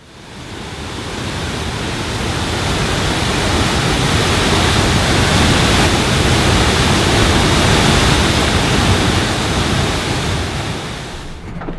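Steady rushing roar of a waterfall, the falling water making a dense, even noise that swells in over the first few seconds and fades out near the end.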